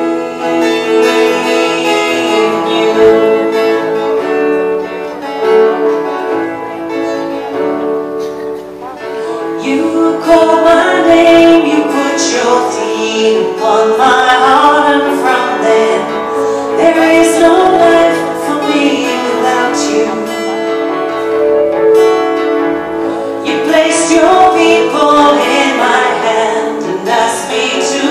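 Live performance of a slow worship song: a woman sings while playing an acoustic guitar, with backing musicians holding chords. The singing grows louder from about ten seconds in.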